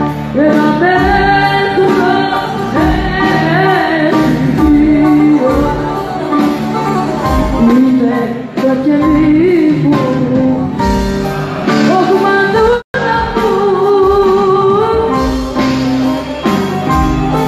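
Live band music with a female singer's amplified voice carrying the melody over guitar. There is a brief cut to silence about two-thirds of the way through.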